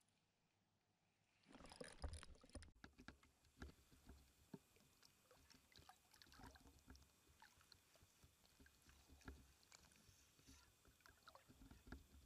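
Faint water lapping and small splashes against a float tube, with scattered light clicks and knocks, starting about a second and a half in after near silence.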